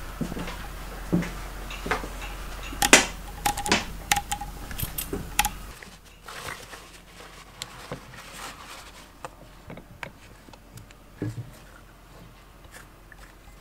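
Scattered knocks and clicks of metal parts and tools being handled over a low hum, the sharpest knock about three seconds in. After about six seconds the hum drops away and only faint light clicks remain, as hands work over an opened Yamaha 250 two-stroke dirt bike engine.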